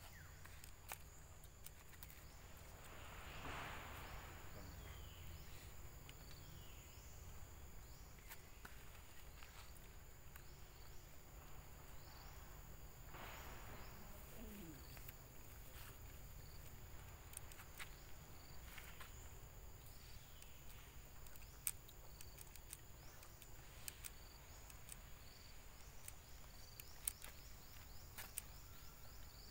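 Quiet forest ambience: a steady, high insect drone with small chirps repeating every second or two, over a low rumble, with a couple of soft swells of noise and a few faint clicks.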